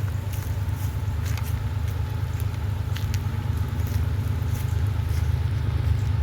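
BNSF diesel locomotives of an approaching intermodal train, a steady low engine rumble growing slightly louder, with scattered faint clicks.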